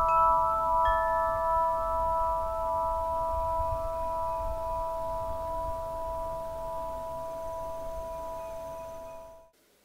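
Metal-tube wind chime ringing: several steady tones hang on and slowly fade, with another tube struck about a second in. The ringing cuts off suddenly near the end.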